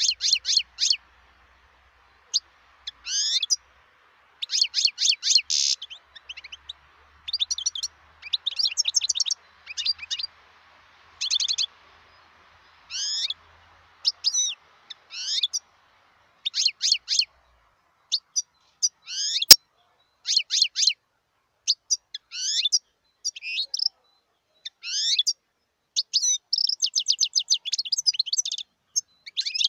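European goldfinch singing: short phrases of rapid, high twittering notes, many sweeping down in pitch, with brief pauses between phrases. One sharp click sounds about two-thirds of the way through.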